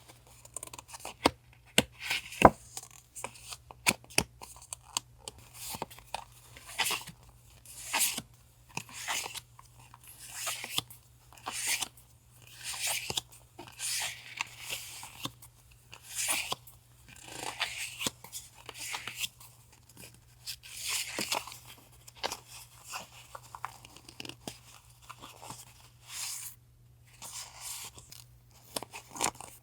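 Packaging being handled and torn open at a desk: repeated crinkling, rustling and tearing of wrappers, with sharp clicks and taps between them. A steady low refrigerator hum runs underneath.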